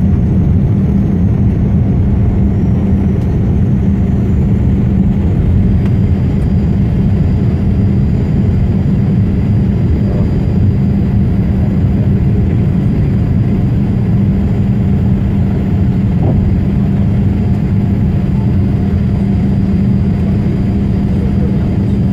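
Boeing 787 Dreamliner's GEnx turbofan engines at takeoff thrust, heard inside the cabin from a seat over the wing: a loud, steady rumble with a constant low hum, carrying on unchanged through liftoff and the initial climb.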